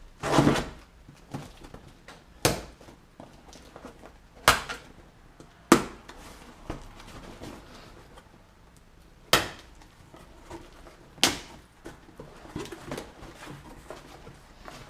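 A cardboard shipping box being slit open with a key and handled: about half a dozen sharp knocks and scrapes, with quieter rustling between them.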